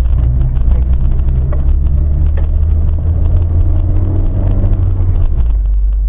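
A moving road vehicle running at speed: a steady low engine and road rumble with frequent small knocks and rattles.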